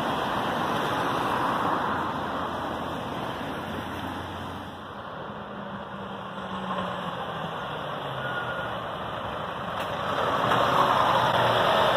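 Diesel engines and tyres of articulated lorries. A curtainside lorry pulls away close by and fades. Then a Scania lorry approaches and grows louder near the end.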